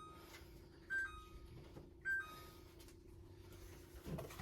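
Refrigerator open-door alarm beeping, a short two-note chirp that steps down from a higher tone to a lower one, repeating about once a second: the sign the fridge door has been left open. A faint steady hum runs underneath.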